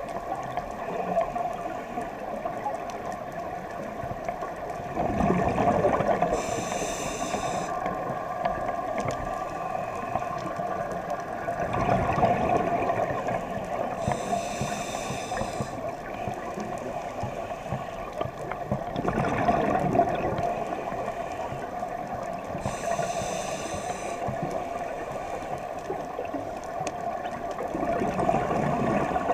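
Scuba diver breathing through a regulator underwater. Each exhale is a bubbling rush and each inhale a short high hiss, in an even cycle about every seven to eight seconds.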